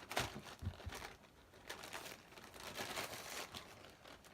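Skateboard-wheel packaging crinkling and rustling in irregular bursts as it is handled and opened, with a sharper rustle right at the start.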